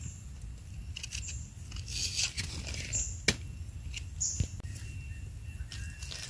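A small knife scraping and trimming the soil off the base of a mushroom stem in short strokes, then dry leaf litter crackling as a hand reaches in among the leaves.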